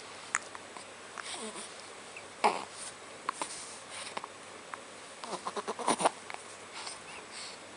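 A few short, sudden hiccups, the loudest about two and a half seconds in and about six seconds in, the second led in by a quick run of small clicks.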